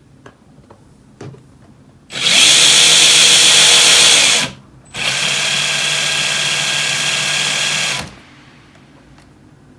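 Brushed electric RC motor whirring at a steady speed in two runs. The first is louder and lasts about two seconds. After a short break comes a quieter run of about three seconds, which cuts off sharply.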